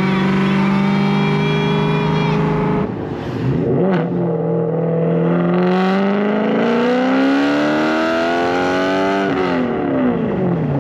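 BMW E92 M3's S65 V8 engine under way, holding steady revs, then briefly easing off near three seconds, with a sharp click about a second later. The revs then climb steadily for about five seconds before dropping away near the end.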